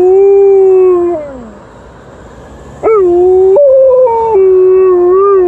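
Alaskan Malamute howling: one long, steady howl that slides down and trails off about a second and a half in, then after a short pause a second howl that jumps up in pitch for a moment, drops back and wavers near the end. The howling is set off by a passing emergency-vehicle siren.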